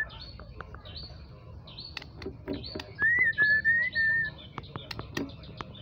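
White-rumped shama of the Medan strain singing, a string of quick high chirps and sharp clicks. About three seconds in comes a loud, warbling whistled phrase lasting just over a second.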